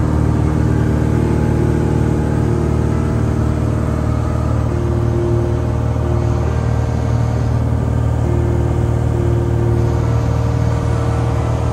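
Cessna 170B's six-cylinder Continental piston engine and propeller droning steadily as heard inside the cockpit on approach, with a humming tone that comes and goes.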